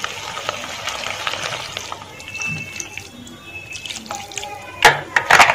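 Water pouring steadily into a pan of tomato pieces, garlic cloves and green chillies, splashing over the vegetables. Near the end come two sharp knocks, the loudest sounds.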